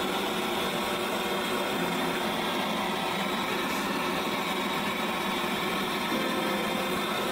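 Steady hiss of a gas torch flame heating a steel bowl of nitric acid, the stage where the remaining mercury is driven off.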